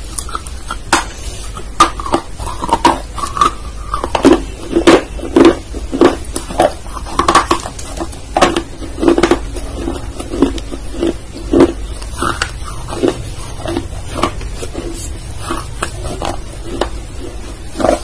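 Close-miked ASMR mouth sounds: wet lip smacks, tongue clicks and slurps in an irregular run, busiest in the middle, over a low steady hum.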